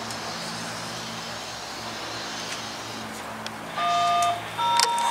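Diesel locomotive running steadily as it moves off, then two short horn blasts near the end, the second on a different chord from the first.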